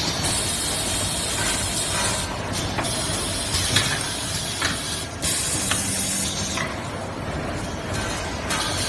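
Toilet paper packing line machinery running: a steady mechanical noise with stretches of hiss about two seconds long, broken by short pauses, and a few clicks.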